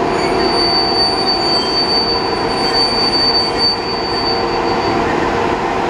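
ChS4T electric locomotive pulling a passenger train slowly away from the platform: a steady mechanical hum and rumble, with a thin high-pitched wheel squeal that dies out about five seconds in.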